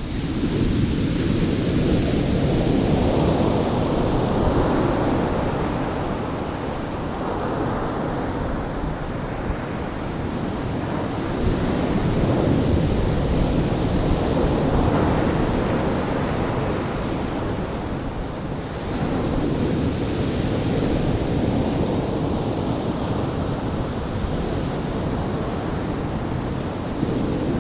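Ocean waves: a continuous rush of surf that swells and eases in slow surges, one every several seconds.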